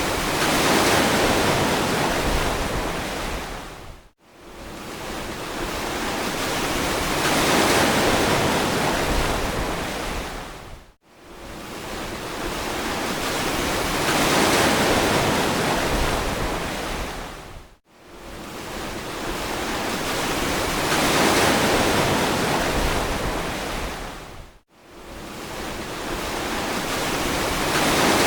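Ocean surf washing on a beach: each wave swells and fades over about seven seconds, then the sound cuts out briefly before the next one, four times in a regular repeating pattern.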